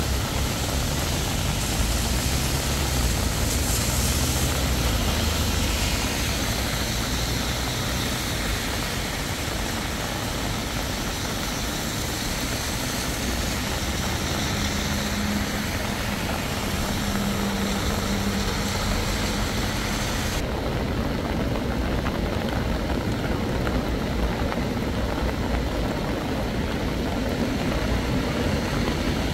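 Steady rushing noise of a flooding, bank-full river in heavy rain, with a faint low hum for a few seconds in the middle.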